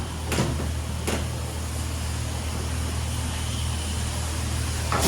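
A motor or engine running with a steady low hum and hiss, with a couple of short clicks in the first second or so.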